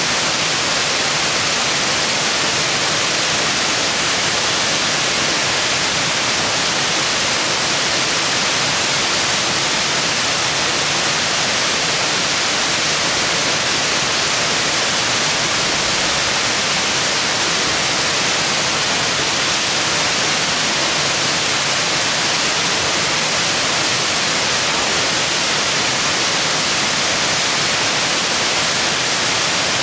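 Mountain brook rushing over rocks and small cascades: a loud, steady rush of water that does not change.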